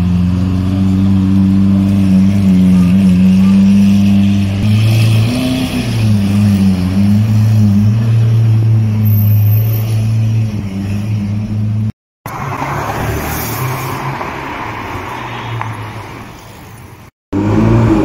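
Lamborghini Aventador's V12 engine running at low revs as the car pulls away slowly, a steady deep drone that swells and dips slightly. About twelve seconds in the sound cuts to general street traffic, and just before the end another sports car's engine comes in suddenly and loud.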